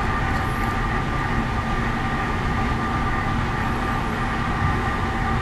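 Steady drone of shipboard machinery and ventilation, a constant hum with several steady tones over a rushing noise.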